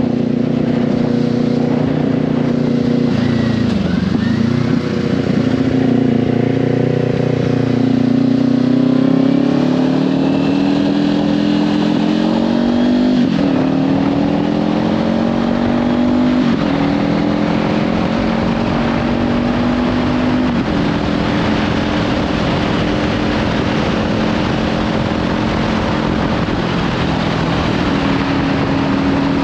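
Kawasaki Ninja 500's parallel-twin engine through a Leovince slip-on exhaust under way. The engine note dips briefly, then climbs as the bike accelerates, with three upshifts that each drop the pitch, before it settles into a steady cruise. Heavy wind noise on the microphone.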